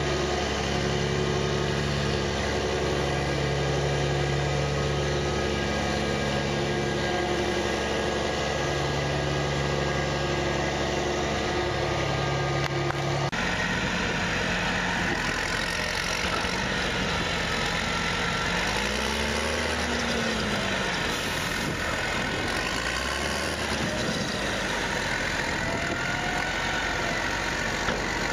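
Challenger crawler tractor's diesel engine running as it pushes silage. Then, after a sudden change about halfway, a Steyr tractor's engine runs while it tips a trailer, revving up and back down twice.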